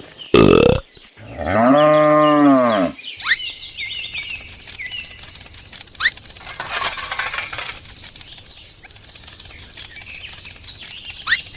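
A cow mooing once, one long call that rises and falls, just after a short loud sound at the start. Quieter high chirps follow.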